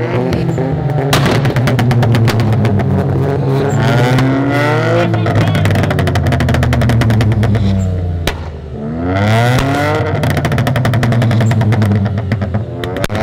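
A Volkswagen Up TSI and a Chevrolet Onix Turbo, both 1.0-litre turbocharged three-cylinders on modified exhausts, revved hard together, their pitch rising and falling several times with a brief drop about eight seconds in. Rapid exhaust pops and crackles run through it as the exhausts backfire, shooting flames.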